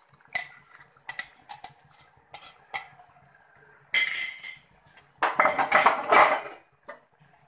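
Cooking utensils clinking and scraping against a metal kadhai and the puree container while tomato puree is added to the mutton: a run of light sharp clinks, a short scrape about four seconds in, then a longer, louder scraping stretch just past five seconds.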